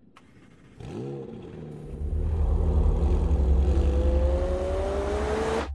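McLaren 765LT's twin-turbo V8 revving briefly about a second in, then running with a deep pulsing rumble that climbs steadily in pitch as the car accelerates, until it cuts off abruptly at the end.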